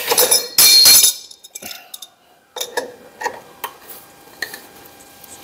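An adjustable wrench clanking against a Model T's rear axle hub nut as the nut is undone. There is a loud metallic clatter in the first second, then a run of lighter, separate clinks.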